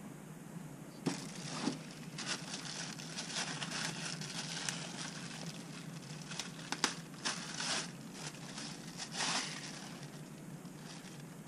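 Plastic packaging crinkling and rustling as a weather-station part is unwrapped and handled, with a few sharp clicks along the way.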